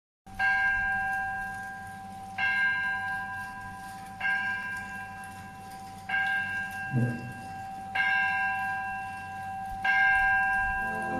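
A bell tolling six times, about two seconds apart, each stroke ringing on and fading before the next.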